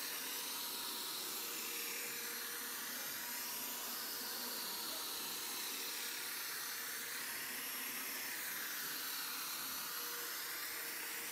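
Angle grinder running steadily as it cuts grass, heard as an even, hissing whir with a slow, wavering swish.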